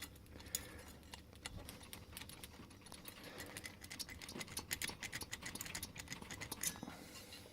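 Faint, irregular small clicks and ticks of a key blank being twisted and rocked in a Master Magnum padlock's keyway, with the pins catching on the blank to mark it for impressioning. The clicks come thicker and louder after about three seconds.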